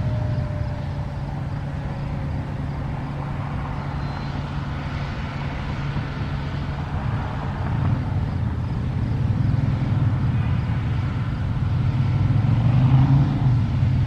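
An outdoor warning siren winding down, its faint falling tone fading out in the first couple of seconds, under a steady low rumble of road traffic that grows louder in the second half.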